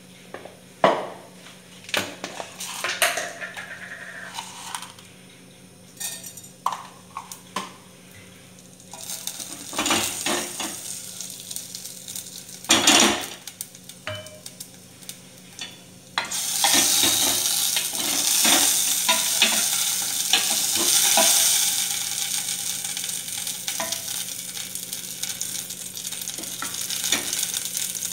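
Whole spice seeds sizzling in hot oil in a small stainless-steel saucepan, tempering for dal, after several sharp taps and clinks of utensils against the pan. About halfway in the sizzle turns suddenly much louder, once a green chilli is in the oil, and then slowly eases.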